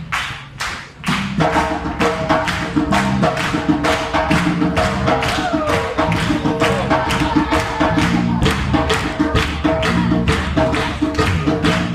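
Live music with bass and hand percussion: a fast, even beat over moving bass notes and held tones. The band thins out briefly at the start and comes back in fully about a second in.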